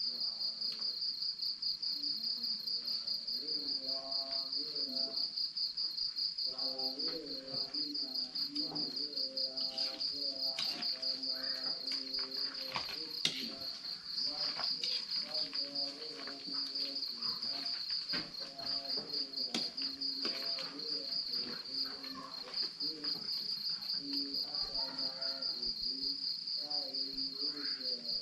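Crickets chirping in a fast, even pulse. Under them a distant voice chants in long, wavering held notes, and a few sharp clicks come around the middle.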